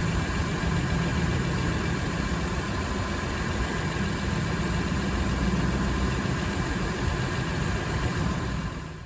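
Vehicle engine idling with an exhaust leak: a steady low rumble with a hiss over it, cutting off just before the end.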